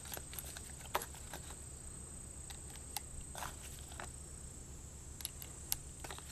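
Scattered light metallic clicks as 8mm Lebel cartridges are pushed one by one into the swung-out cylinder of a Model 1892 French Ordnance revolver. A steady high insect buzz runs underneath.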